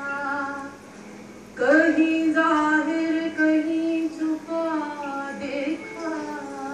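A woman singing a Sufi kalam without words being clearly enunciated, drawing out long held, gently wavering notes: one note trails off about a second in, then after a short breath a new note rises in and is held for about four seconds before the next phrase begins.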